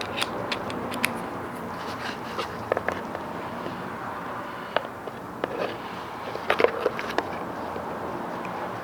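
Scattered light clicks and scrapes of hand work on the fog light fittings: metal speed clips being pulled off to be reused. Steady hiss underneath, with a small flurry of clicks a few seconds in and another near the end.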